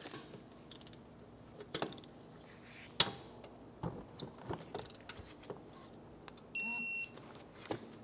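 Digital torque wrench giving one electronic beep of about half a second, near the end, signalling that a caliper bracket bolt has reached its set torque of 48 foot-pounds. Before it come a few light clicks and knocks of the tool on the bolts.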